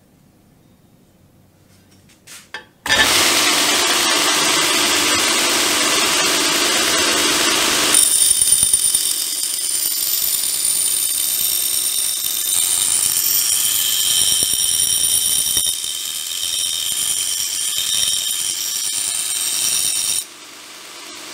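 A belt grinder starts up abruptly about three seconds in and runs loud and steady. From about eight seconds the steel edge of an axe head is ground on the abrasive belt, adding high ringing, screeching tones. The sound drops off sharply near the end.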